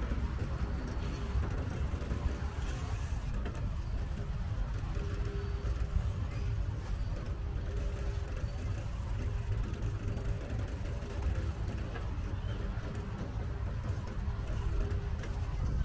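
Steady low rumble of wind and road noise from a moving bicycle ride, with motor traffic mixed in.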